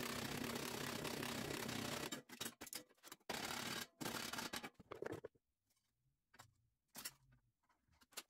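Hammer tapping 1.2 mm sheet steel over a steel table edge to fold it: a fast run of taps, then separate sharp blows, then a few faint knocks near the end.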